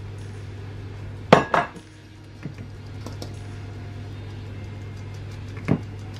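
Metal mesh sieve and bowls clattering as flour is sifted: two sharp knocks in quick succession a little over a second in, a few lighter taps after, and another knock near the end, over a steady low hum.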